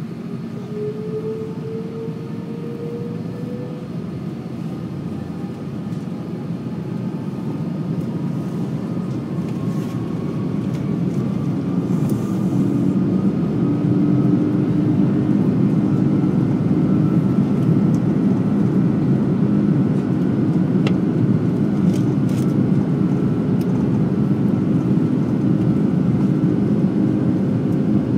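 Airbus A330-200 jet engines heard from inside the cabin, spooling up for takeoff: a slowly rising whine over a growing roar that levels off about halfway through into a steady loud roar with a droning hum.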